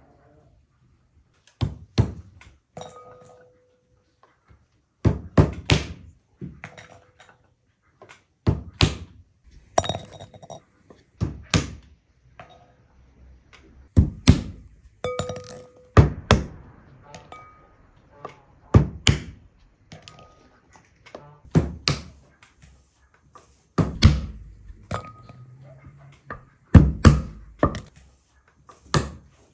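Roasted chestnuts being dropped one or a few at a time into a glass bowl: sharp knocks and clinks at irregular intervals, roughly every two to three seconds, the glass ringing briefly after some of them.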